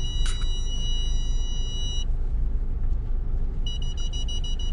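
A car's parking-sensor warning inside the cabin, signalling obstacles close to the car: a steady high beep for about two seconds, then rapid pulsing beeps near the end. Under it runs the low rumble of the car on the move.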